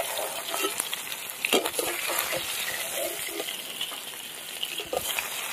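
Hot mustard oil sizzling in an iron karahi as fried hilsa pieces are lifted out, with a few scrapes and knocks of the metal spatula against the pan.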